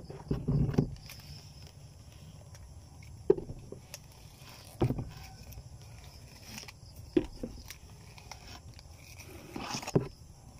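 Handling of a plastic dishwashing-liquid bottle while a sticker label is pressed onto it: scattered short knocks and rustles, a few seconds apart.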